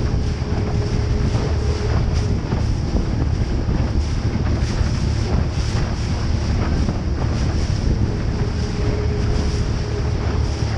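Heavy wind buffeting the microphone on a boat moving at speed through choppy water, with water rushing and splashing against the hull over a steady low rumble. A faint thin whine comes and goes near the start and again near the end.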